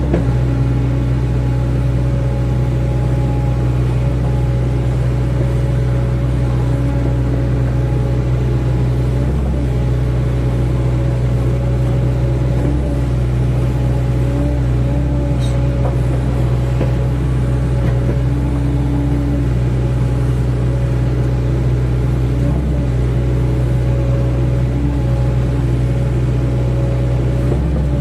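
Hydraulic excavator's diesel engine running steadily at working speed, a constant low drone with a few steady higher tones over it.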